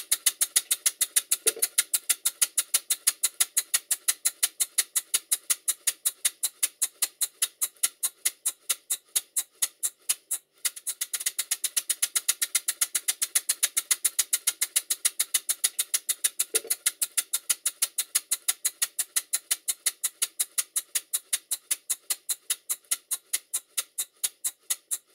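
Stuart 5A model steam engine running forward on compressed air, its exhaust hissing in sharp, even puffs about four times a second, with a short high note twice. The slide valve now sits flat on the port face, and the owner says the engine is still tight from close tolerances and needs running in.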